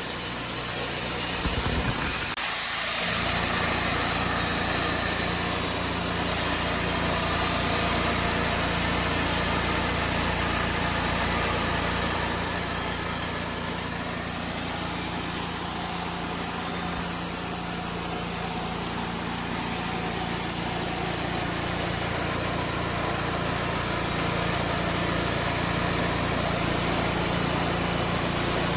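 Portable band sawmill running steadily, its engine driving the blade through a hardwood log. There is a short knock a little past halfway.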